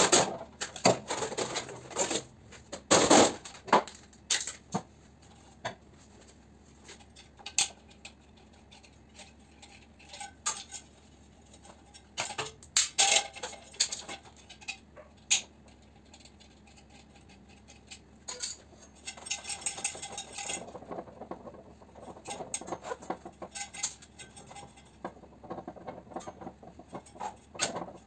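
Sheet-metal blower parts of a fan coil unit being pried apart and pulled out by hand with a screwdriver: irregular metallic clanks, clinks and rattles, busiest in the first few seconds, sparse through the middle, with a longer rattling stretch past the middle and a loud clank near the end as a squirrel-cage fan wheel comes free.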